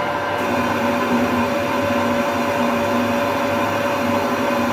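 Metal lathe running under power, taking a cutting pass along a bar of EN8 steel: a steady whine of motor and gearing with a few held tones over the cutting noise.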